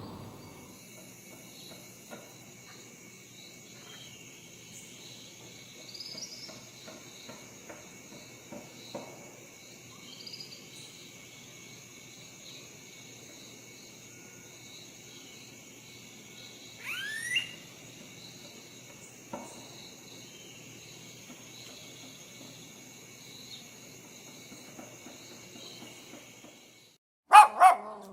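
Faint, steady high-pitched chirring like insects, with a few scattered short calls and one rising call partway through. Near the end a dog starts barking loudly, several barks in quick succession.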